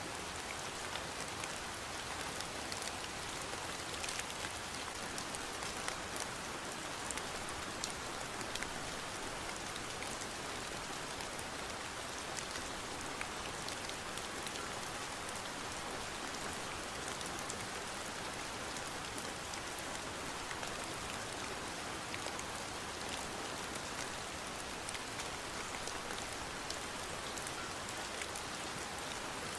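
Steady rain falling, a continuous even hiss with many fine drop ticks and no thunder.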